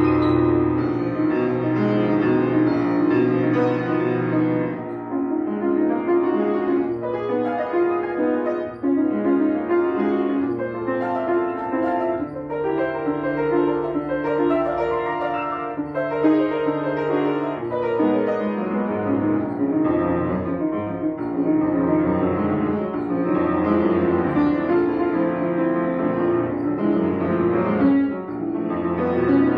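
Grand piano played solo in a fast toccata: a dense, unbroken stream of rapid notes in the middle register over held low bass notes.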